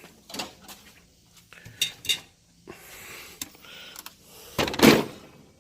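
Knocks and clatter of power tools and accessories being handled in a steel tool cart drawer: a few separate clicks and taps, then one louder rattling clatter lasting about half a second near the end.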